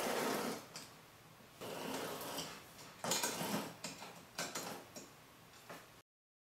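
Steel guide rods being slid through linear bearing blocks on an aluminium extrusion bed: about four short bouts of metal scraping with light clicks.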